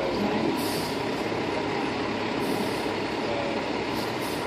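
FDNY fire engine's diesel engine running steadily as the pumper moves slowly at low speed.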